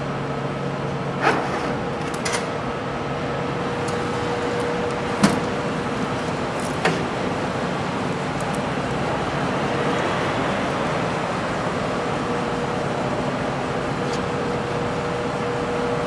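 Steady mechanical hum, with a handful of sharp metallic clicks and clinks as hand tools are handled in a metal tool-chest drawer.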